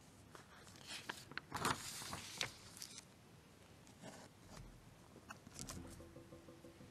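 Faint rustling and clicking from people moving about in a quiet church, with a louder scraping rustle about two seconds in.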